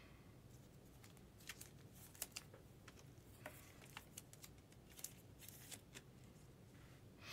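Faint, scattered clicks and light rustles of trading cards and their packaging being handled.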